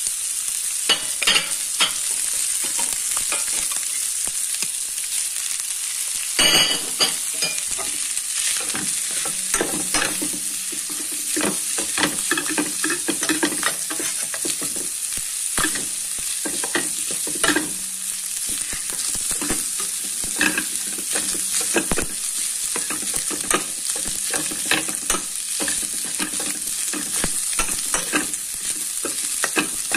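Rice stir-frying in a frying pan with bacon, prawns and vegetables: oil sizzling steadily under irregular scrapes and clicks of a metal spatula turning the rice against the pan, with one louder metallic clank about six seconds in. The rice has just gone into the hot oil.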